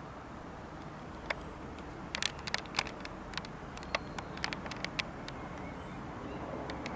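Steady, distant rumble of an Airbus A320's IAE V2500 jet engines passing overhead on descent. A run of sharp clicks comes in the middle, and two faint high chirps come about a second in and near the end.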